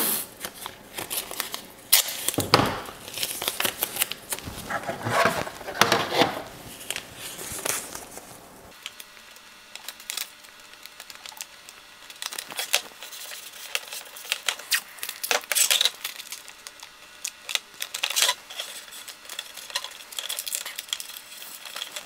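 Blue painter's tape being pulled and torn into strips, then pressed and smoothed by hand onto a hard plastic RC truck body. There are several rasping pulls in the first eight seconds, then quieter scattered clicks and rubbing as the tape is laid down.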